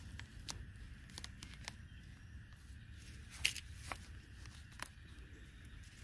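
A stick poking and scraping into the loose dry soil of an ant mound: faint scattered crackles and scrapes, the loudest about three and a half seconds in, over a low rumble.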